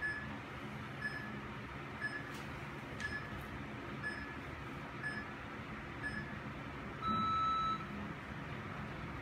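Digital gym interval timer counting down with short, high beeps about once a second, then one longer, lower beep about seven seconds in that signals the start of the workout.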